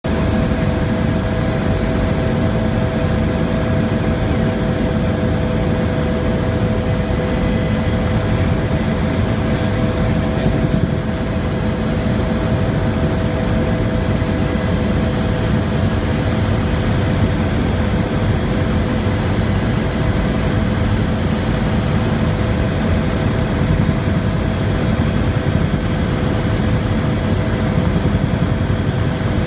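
Helicopter in cruise flight, heard from inside the cabin: a loud, steady low rumble of rotor and engine noise with a constant hum over it.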